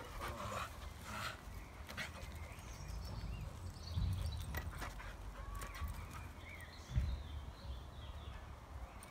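A small dog whining and yipping excitedly as it plays, over a steady low rumble of wind on the microphone, with two thumps about four and seven seconds in.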